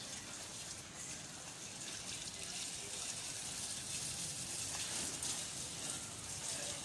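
A steady stream of running water splashing onto taro leaves and lemongrass stalks in a basin as they are rinsed clean.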